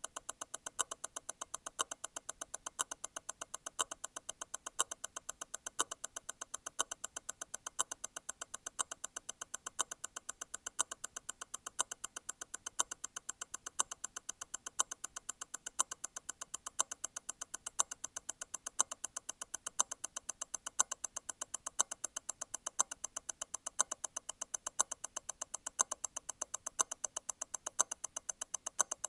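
Grand Seiko T0 Constant-force Tourbillon hand-wound movement ticking steadily at 28,800 beats per hour, eight ticks a second. About once a second a louder tick stands out: the constant-force stop wheel releasing and striking again once every eight beats.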